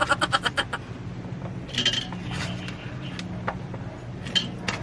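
Cooking sounds at a pot of simmering soup: a few light clicks and scrapes of a utensil against the pot, over a steady low hum. A quick run of clicks comes right at the start, then single clicks about two, three and a half, and four and a half seconds in.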